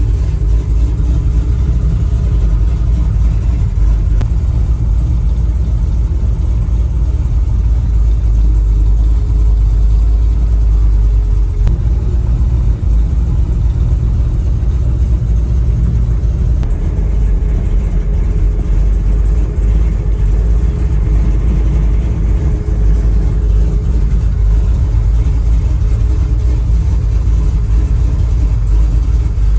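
Chevrolet Nova's cammed engine running well at a slow cruise, a steady low rumble heard from inside the car's cabin.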